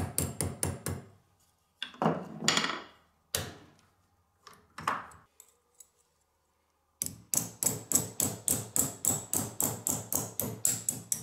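Hammer tapping a steel hinge on a small anvil to bend it near the pin: a quick run of light metallic taps at the start, a few scattered knocks, then about four seconds of steady strikes, roughly five a second, near the end.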